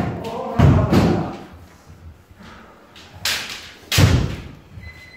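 Kendo sparring: a few sharp thuds and smacks of stamping footwork on the dojo floor and bamboo shinai strikes, three main impacts spread a second or more apart.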